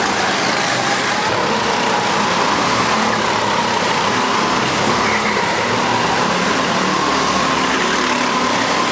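Go-kart engines running as karts lap an indoor track: a steady, loud drone with a whine that drifts slightly in pitch.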